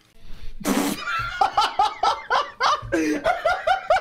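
A man laughing hard. It starts with a sharp breathy burst about half a second in, then runs into a long string of quick, rhythmic 'ha' pulses, several a second.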